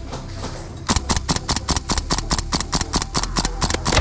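Tokyo Marui AKM gas-blowback airsoft rifle firing a rapid string of shots, about eight a second, starting about a second in and lasting some three seconds. A loud thud comes right at the end.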